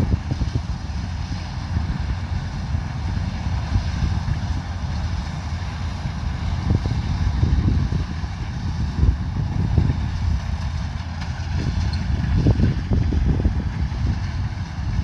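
Kubota combine harvester's diesel engine running steadily at working speed, with a faint steady whine above it and low gusty rumble from wind on the microphone.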